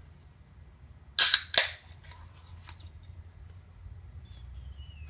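Two loud, sharp impacts about half a second apart, followed by a few fainter clicks, over a low steady hum.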